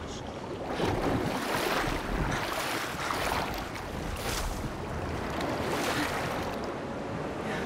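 Floodwater splashing and sloshing as a person wades quickly through it, in repeated surges, over a steady rush of storm wind.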